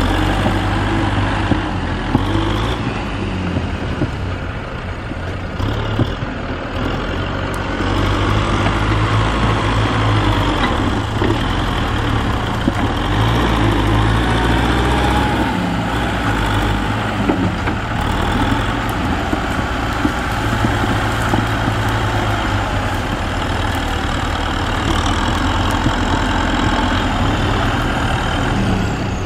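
Kubota tractor's diesel engine running steadily under load as its front dozer blade pushes soil. The low engine note gets louder about eight seconds in.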